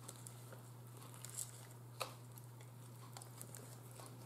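Faint chewing of a mouthful of Subway spicy Italian sandwich, with a few small clicks, the clearest about two seconds in.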